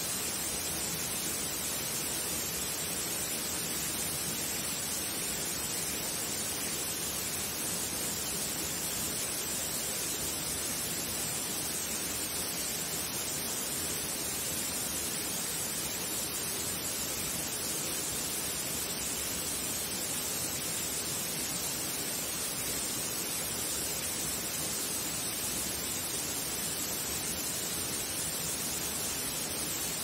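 A thin waterfall splashing steadily into a pool: a continuous, even hiss of falling water that does not change.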